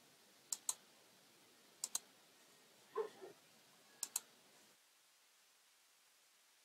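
Computer mouse clicking: three quick double clicks, like a button press and release, spread over about four seconds, with a short duller sound between the second and third.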